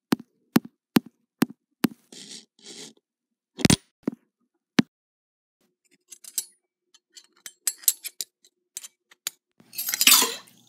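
A run of evenly spaced sharp clicks, about three a second, then two short scrapes and one hard knock. Scattered light clinks follow and build to a loud jangling rattle of a chain near the end.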